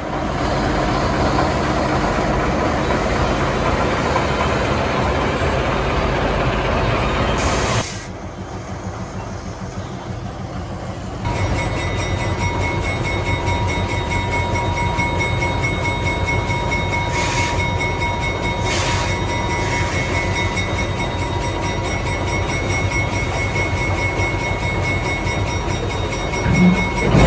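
A General Electric diesel switcher locomotive running steadily at close range. The sound drops for a few seconds about eight seconds in, then comes back with a thin steady whine over the engine.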